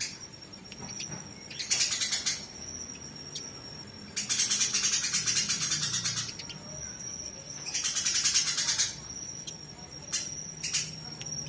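Eurasian tree sparrows giving rapid, harsh chattering calls of the kind they make when fighting, in three loud bursts lasting one to two seconds each. A thin, steady high tone and scattered single chirps fill the gaps between bursts.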